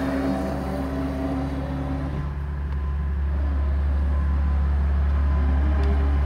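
Brushless electric motor of a Fastwave Tiger Shark RC boat whining at speed on the plane. The whine fades after about two seconds as the boat runs off and comes back near the end, over a steady low rumble.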